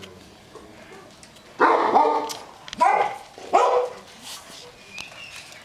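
A dog barking three times in quick succession, the first bark drawn out and the next two shorter.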